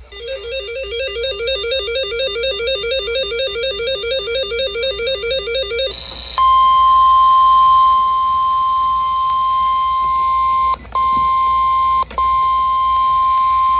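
A synthesized tone warbling rapidly between two pitches for about six seconds. It gives way to the NOAA Weather Radio 1050 Hz warning alarm tone, a single steady tone that announces an emergency alert broadcast. The alarm tone cuts out briefly twice.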